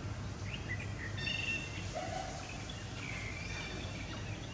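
Steady low background hum with scattered short, high chirping calls, like birds, and one lower short call about two seconds in.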